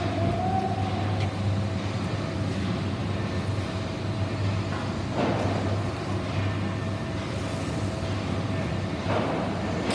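A steady low mechanical hum, with a short knock about five seconds in.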